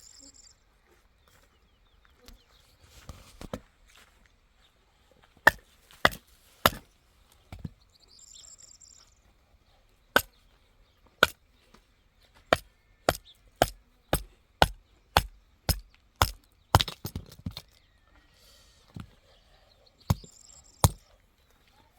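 Repeated sharp chopping blows. A few come about five seconds in, then a steady run at about two a second for several seconds, and two more near the end.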